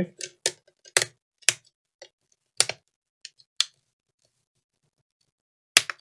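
Plastic screen bezel of an HP EliteBook 830 G5 laptop being pressed back onto the display lid, its clips snapping into place in a quick series of sharp clicks over the first few seconds. One more sharp click comes near the end.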